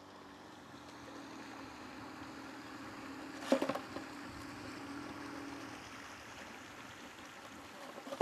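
River water rushing steadily around a dugout canoe, with splashes as a long wooden pole strikes the water: a sharp cluster about halfway through and another at the very end.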